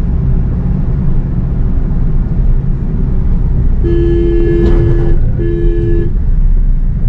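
A car horn sounds twice: a long two-note blast of just over a second, then a shorter one. Underneath is the steady rumble of engine and road noise inside a moving car's cabin.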